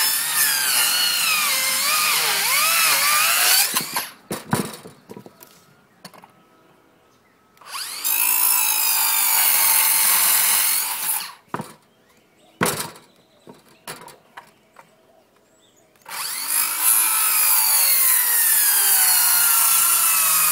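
Cordless circular saw cutting through a 2x4 rafter in three passes, a loud high whine that wavers as the blade goes through the wood. Between the passes the saw stops and there are a few knocks and clicks as the board and saw are handled.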